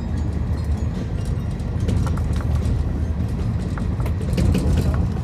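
Passenger train running along the line, heard from inside the carriage: a steady low rumble of the wheels on the rails with scattered clicks and knocks.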